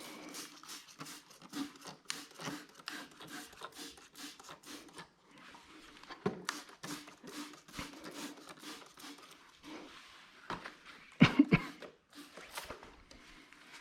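Quick repeated rubbing strokes of hand-cleaning the carbon gunk off a BMW 335i intake manifold, with two sharp knocks a little past eleven seconds in.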